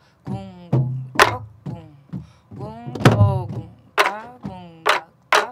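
Several soribuk, the Korean pansori barrel drum, playing the jungjungmori rhythm together. There are sharp cracks of the stick on the wooden shell and low thumps of the palm on the drumhead. A woman's voice chants along between the strokes.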